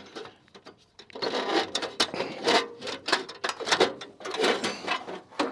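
Pea sheller guard being handled and fitted onto the machine's frame bolts: parts clattering and rattling against each other in irregular bursts, starting about a second in.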